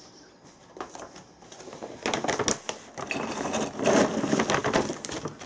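A large foil dog-food bag being handled, crinkling and rustling in bursts that are loudest about two and four seconds in.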